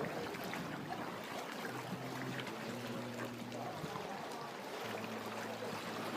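Water trickling and lapping around a canoe, with a faint low steady hum coming and going in the background.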